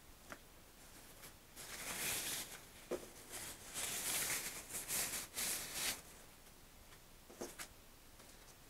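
Rustling and crinkling of a thin white packaging sleeve as an EPP foam model-plane wing is slid out of it, in several bursts between about two and six seconds in, with a few light taps.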